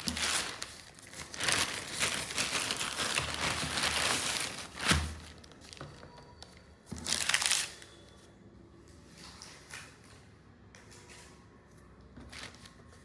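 Packaging being crinkled and rustled while it is opened, with a sharp snap about five seconds in and another short burst of crinkling around seven seconds, then only light, quieter handling.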